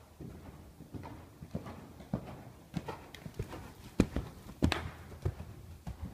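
Horse's hoofbeats on sand arena footing as it is ridden past at close range, a run of irregular dull strikes that are loudest as the horse passes right by about four seconds in.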